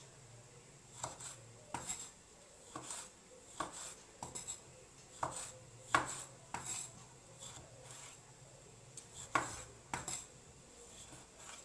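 Chef's knife slicing cherry tomatoes on a wooden cutting board: irregular knocks of the blade against the board, roughly one a second, with the loudest strikes about six and nine and a half seconds in.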